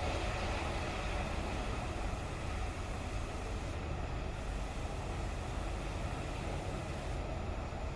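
Compressed air hissing steadily into a car tire through a tire changer's inflation hose as it is brought up toward 40 psi. The hiss thins out briefly about four seconds in and again near the end.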